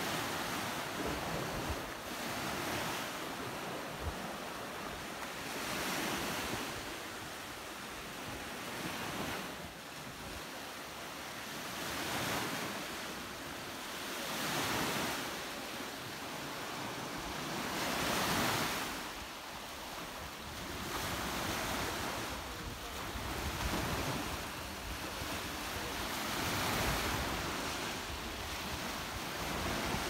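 Small Black Sea waves washing in over shoreline rocks. The surf hiss swells and fades every few seconds, with wind buffeting the microphone.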